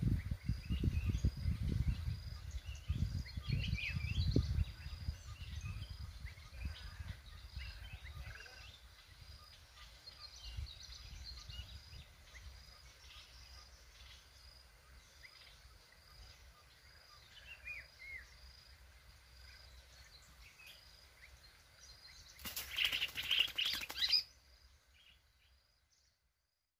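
Bulbuls chirping and whistling in scrubby woodland, with a high note repeating steadily, over low wind buffeting of the microphone in the first few seconds. Near the end, a loud rustling burst lasts about two seconds before the sound fades away.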